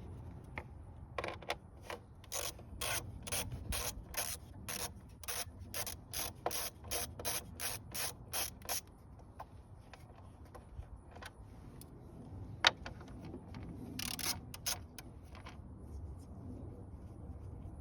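Hand ratchet wrench clicking as it is worked back and forth to back out a fastener, a steady run of about three clicks a second for several seconds. Then a single sharp knock, and a short burst of clicks a little later.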